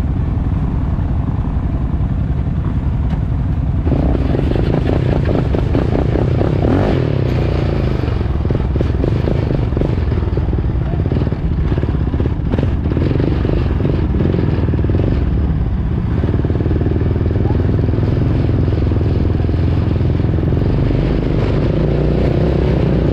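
All-terrain vehicle engine running steadily while being ridden, growing louder about four seconds in.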